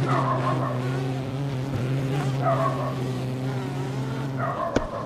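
A swarm of giant honey bees buzzing around their exposed comb, stirred up by the harvest: a steady low hum that cuts off abruptly near the end, followed by a couple of sharp clicks.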